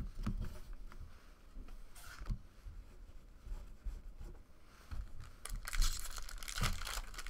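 Foil trading card pack crinkling and being torn open, with cards rustling as they are handled. The light rustling grows into denser crinkling about five seconds in.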